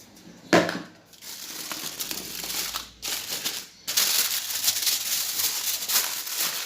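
A sharp knock about half a second in, then crinkling of a sheet of kitchen wrapping being handled and pressed down over a chicken in a roasting tin, in two stretches with a short pause around three seconds in.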